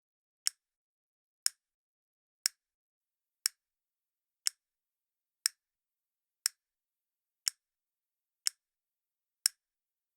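Clock ticking, one sharp, bright tick a second, evenly spaced with silence between ticks.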